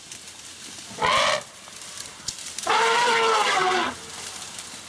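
African elephant trumpeting twice: a short call about a second in, then a longer one of about a second whose pitch sags down at the end.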